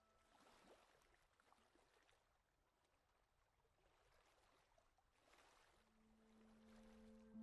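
Near silence: faint soft hiss, with a low held note of the film's music fading back in near the end.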